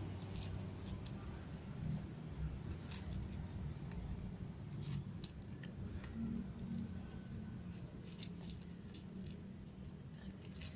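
Cats eating dry kibble from a plastic tub: scattered small crisp crunches and clicks over a steady low rumble, with one short rising chirp about seven seconds in.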